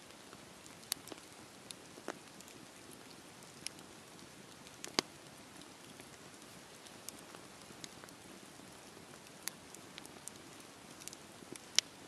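Wood log fire burning: a faint steady hiss with scattered sharp crackles and pops, the loudest about five seconds in and just before the end.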